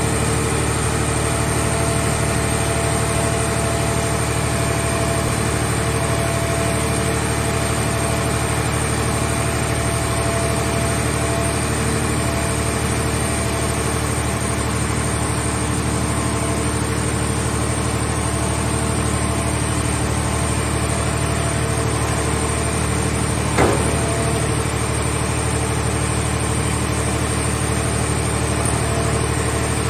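Hydraulic car-shell baler's power unit running steadily. A single sharp knock comes about three quarters of the way through.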